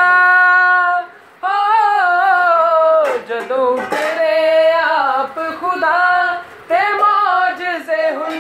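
A man singing a Punjabi devotional song with drawn-out, ornamented notes. He holds one long steady note at the start, then slides between pitches, with short breaths about a second in and again near seven seconds.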